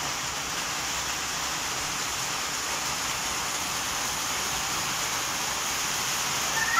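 Rain falling steadily during a sunshower, an even hiss. Near the end a short high call cuts in over it.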